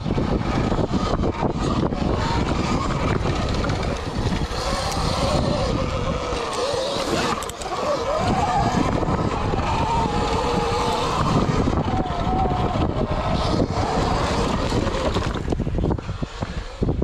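Dirt bike engine being ridden hard, its pitch rising and falling with the throttle over a heavy rushing noise. It drops away near the end.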